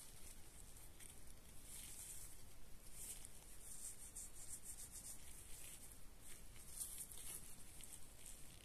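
Faint rustling and rubbing of a thin soft cloth being unfolded and crumpled between gloved hands, in irregular soft swishes.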